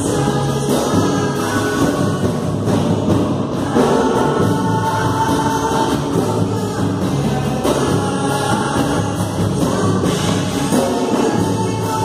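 A small gospel band playing and singing live: several voices singing together over the band, including a large hand-played drum.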